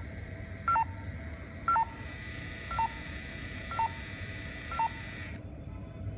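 Electronic beeping from a Slowjec dental anaesthetic injector: a two-note beep, high then low, repeated about once a second, five times, the later ones quieter. It sounds while the device's button is held to drive the crank. A faint steady high whine joins about two seconds in and cuts off suddenly shortly before the end.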